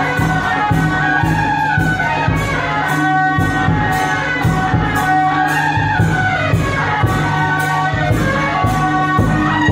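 Loud festive procession music: a horn melody over a steady beat of cymbal clashes, about two and a half a second.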